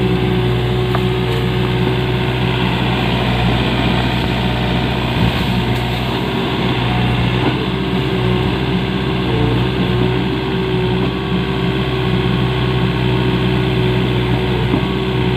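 Kobelco SK50P mini excavator's diesel engine running steadily with an even, unchanging hum.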